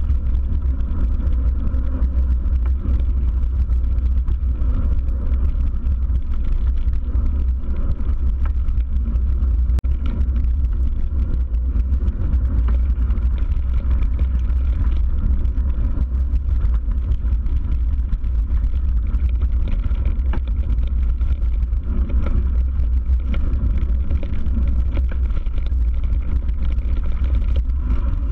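A steady, loud low rumble with a faint background din over it.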